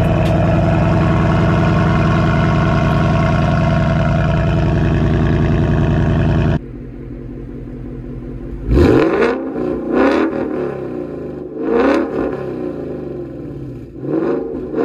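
A steady, loud drone that cuts off abruptly about six and a half seconds in. It is followed by a car engine being revved in four short blips, each rising and falling, about every one and a half to two seconds.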